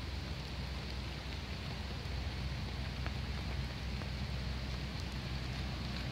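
Steady hiss of light rain over a constant low rumble.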